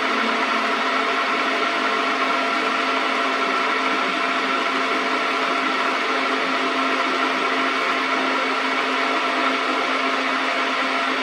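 Metal lathe running steadily: an even motor and gear hum with a fixed whine that does not change.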